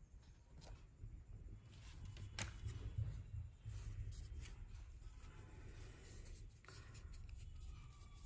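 Faint rustling, scraping and a few soft clicks of hands handling cardboard and paper watch packaging, over a low rumble.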